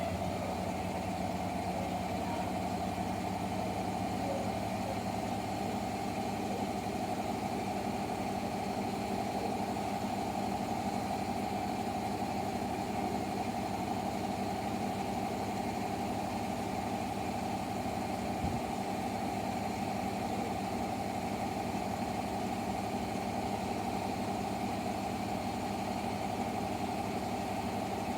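Hotpoint WMFUG942 washing machine in its spin cycle, the drum and brushless motor running steadily at full speed with an even hum and whine. Ramped up like this it is not too bad, despite the off-balance drum spider.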